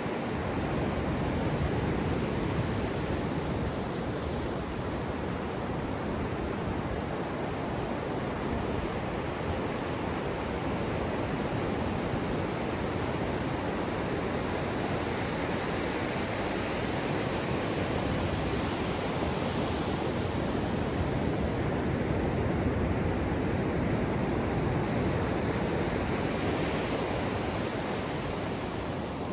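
Ocean surf breaking and washing up the sand right at the microphone, a steady rushing that swells and eases gently.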